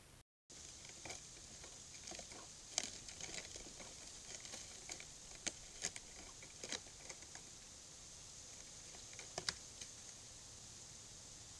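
Irregular soft clicks and crackles of a bobcat stepping over dry logs and leaf litter, over the steady hiss of a trail camera's microphone.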